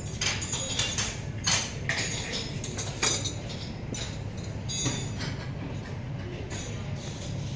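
Restaurant room sound: a steady low hum with frequent sharp clinks and clatter of dishes and cutlery.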